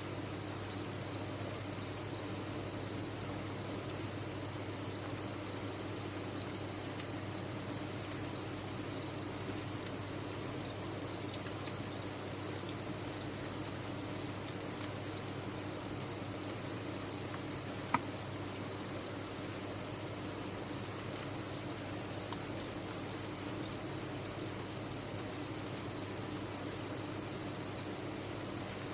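A dense, unbroken chorus of many farmed crickets chirping together, a steady high-pitched ringing.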